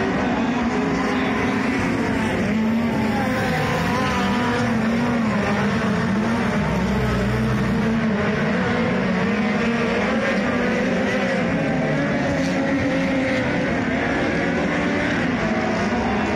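Several dirt-track speedway race cars running laps together, a continuous engine drone whose pitch keeps rising and falling as the cars go round the oval.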